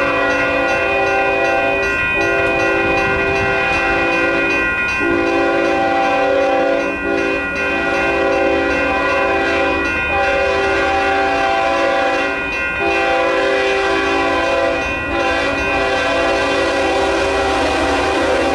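Horn of an approaching freight train blowing for the grade crossing. It sounds as a steady, loud multi-note chord that holds its pitch, broken briefly about every two and a half seconds.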